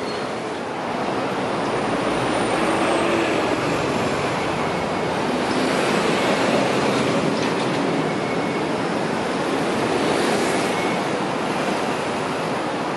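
Hong Kong Light Rail vehicle running past on the track: a steady rumble of wheels on rail that swells about a second in, with a faint high whine now and then.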